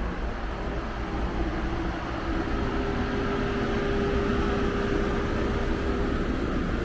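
Amtrak Superliner passenger car of the Auto Train at close range: a steady mechanical hum over a dense low rumble, growing slightly louder after about two seconds.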